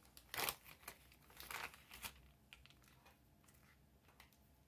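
Thin polyurethane bag crinkling as it is laid over a pocket watch dial and pressed flat with the fingers. A few brief rustles, the loudest about half a second in and another cluster around a second and a half, then faint small crackles.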